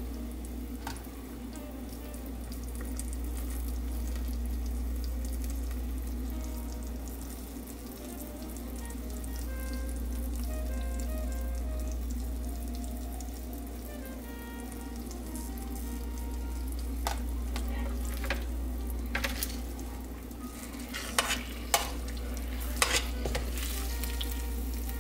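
Tanghulu sugar syrup, cooked to the hard-candy stage at about 150 °C, sizzling and bubbling in a saucepan as a fried chicken drumstick is swirled through it with metal tongs. A few sharp taps of the tongs against the pan come near the end, over a steady low hum.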